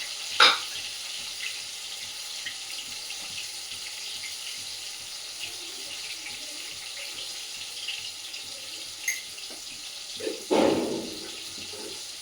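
Chopped tomatoes frying in hot oil in a kadhai, a steady sizzle, with a sharp clink about half a second in and a louder knock of a utensil against the pan near the end.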